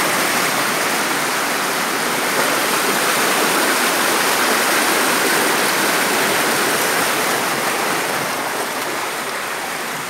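Stream water rushing and churning in white water over rock ledges at the head of a waterfall, a steady rush close to the microphone that eases slightly near the end.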